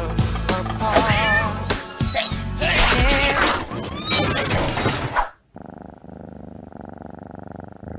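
Cats meowing over background pop music. About five seconds in the music cuts off abruptly and a quieter, muffled sound follows.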